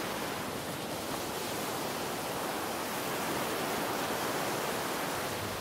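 A steady, even hiss with no other sound in it.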